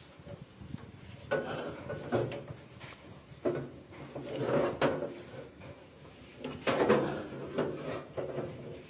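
Electrical wire being dragged out through a wall conduit in several separate pulls, each a scraping, rubbing slide. It is the leaking live wire being pulled out for replacement.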